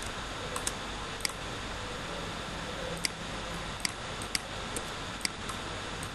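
Computer mouse clicking: about nine sharp, short clicks at irregular intervals, over a steady background hiss.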